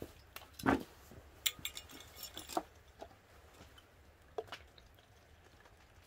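Glass soju bottle and drinking glass being handled: a dull knock under a second in, then a run of light clinks, and a few single ticks.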